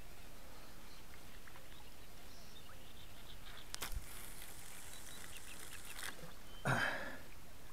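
A fishing rod being cast: a sharp swish about four seconds in, then fishing line hissing off the reel spool for about two seconds until it stops suddenly, followed near the end by a short louder thump.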